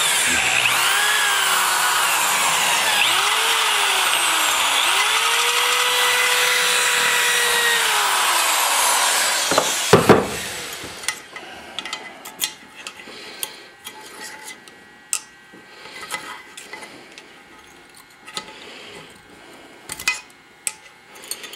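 Die grinder with a carbide burr cutting at the valve guide boss in a cast-iron cylinder head port, its pitch dipping and rising as the burr bites, then winding down about ten seconds in with a knock. Light clicks and taps of handling follow.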